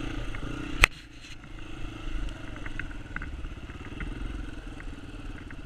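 Dirt bike engine running at low, steady revs, with one sharp knock about a second in.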